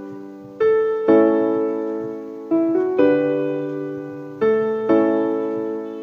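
Soft background piano music: gentle chords struck in pairs about every two seconds, each ringing out and fading.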